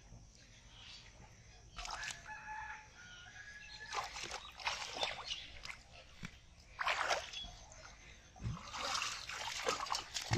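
Shallow muddy water splashing and sloshing in several bursts as a boy wades and drags an aluminium pot through it. A rooster crows once about two seconds in.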